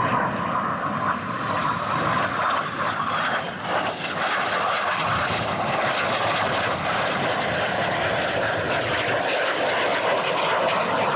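Jet engine noise from Red Arrows BAE Hawk T1 trainers making low, high-speed flybys. It is a loud, steady turbofan rush that grows brighter and hissier a few seconds in.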